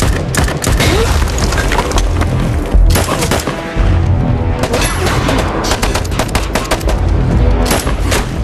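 Rapid gunfire from rifles and pistols, shots in quick bursts, with a loud bang about three seconds in, over dramatic film music.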